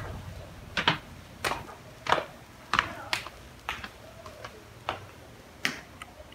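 Footsteps of soft house slippers on a tiled floor: a steady walk of about ten short slaps, roughly one every two-thirds of a second.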